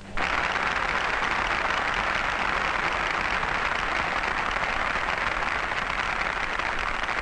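Studio audience applauding steadily, greeting a performer announced on stage. It comes through an old 1940s broadcast recording.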